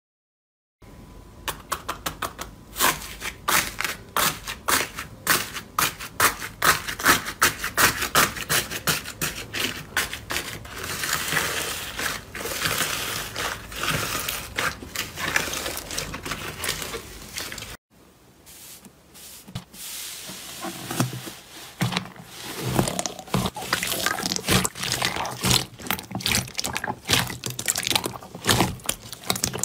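Slime being squeezed and kneaded by hands: first fluffy slime giving a dense run of fast sticky crackles and small pops, then, after a sudden break about two-thirds of the way through, a glossy slime pressed with lower-pitched squelches and pops.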